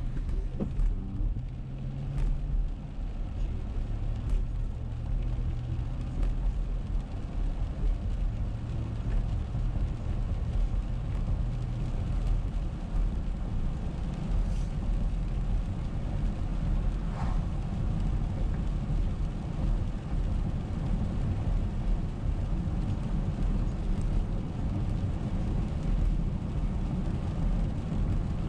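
Steady low rumble of a car driving on a wet road, heard from inside the cabin, with a low engine hum that fades after about twelve seconds. A few faint ticks sound here and there.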